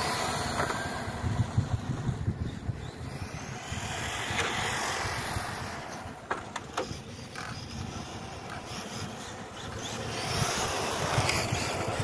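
HSP Flying Fish RC touring car driving on rough asphalt: its brushed 540 electric motor and gear drive whine, rising and then falling as the car speeds up and slows, twice, over the rumble of its small tyres on the pavement. A few sharp clicks about six seconds in.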